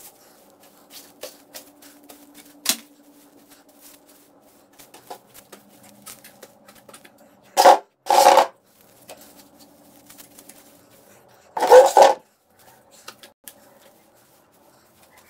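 Handling noise from a phone being carried and moved about: light clicks and taps, then three loud scratchy rubbing bursts, two close together a little before the middle and one about three-quarters of the way in. A faint steady hum runs underneath.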